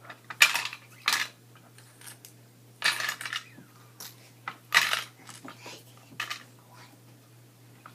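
Tiny Barbie toy cups and dishes clattering as they are dropped back into their container, in about five separate bursts of small clinks.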